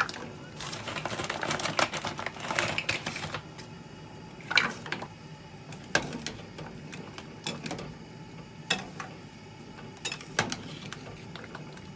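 Dried paccheri pasta tubes dropped into a stainless steel pot of water, clattering for about three seconds, then a slotted metal spoon stirring them and clinking sharply against the pot about six times.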